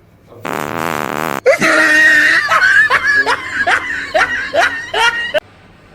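A fake fart sound with a wobbling pitch, about a second long. Several seconds of loud laughter follow, in quick repeated bursts, and cut off suddenly.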